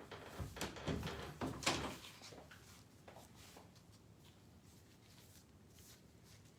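A short clatter of knocks and rustling, the loudest knock a little under two seconds in, then quiet room tone.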